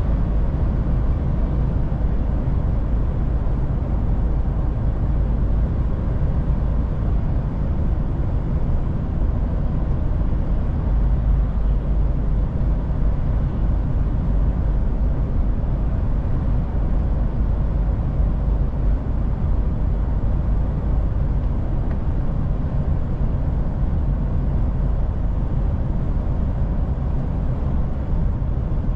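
DAF truck driving along, its engine and tyres making a steady low drone with no change in pace.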